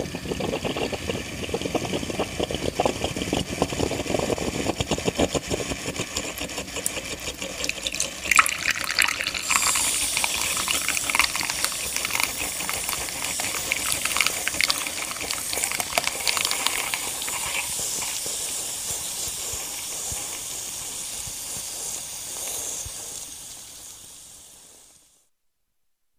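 Coffee machine brewing: a crackling gurgle at first, then from about eight seconds in a louder hissing, sputtering rush of steam and water, fading away and stopping shortly before the end.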